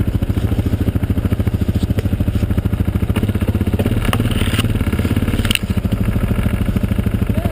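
Quad (ATV) engine idling steadily close by, a rapid even pulsing, with a few short knocks and scrapes over it.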